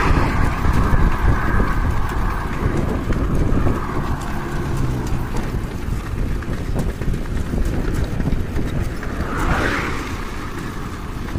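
Wind rumbling on the microphone of a moving bicycle, with road traffic: a car passing and pulling away at the start and another vehicle swelling past about ten seconds in.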